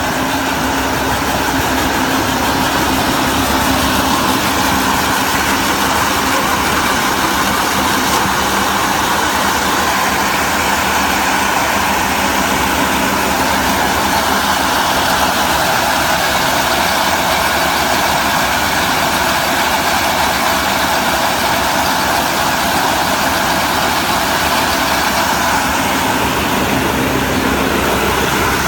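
Tractor-drawn round hay baler at work: a steady, unbroken drone of engine and machinery.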